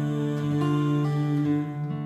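Gentle instrumental music: slow, sustained chords held and changing every half second or so.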